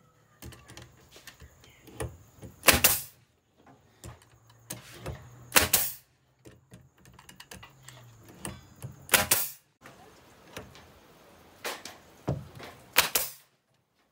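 Pneumatic nail gun driving nails into wood: four loud, sharp shots a few seconds apart, with lighter clicks and taps from handling the tool and boards in between.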